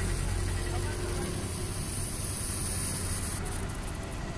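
A machine's steady low hum with a hiss over it; the highest part of the hiss cuts off sharply about three and a half seconds in.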